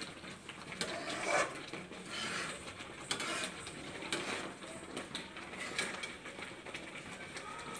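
Steel spoon scraping and clinking against a steel kadai as vermicelli milk pudding (semai payesh) is stirred, in irregular scrapes and clicks.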